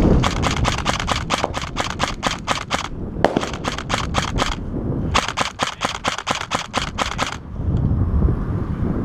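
HK416-style airsoft rifle firing three strings of rapid shots, about six a second, with short pauses between them about three and five seconds in.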